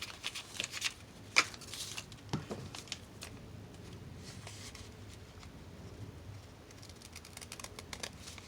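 Paper and card being handled and folded into a small journal booklet: a few sharp clicks and rustles in the first three seconds, the loudest about a second and a half in, then faint handling noise.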